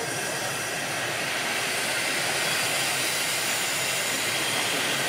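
Steady hiss of steam venting from Rhaetian Railway steam locomotive 108 as it stands on the turntable.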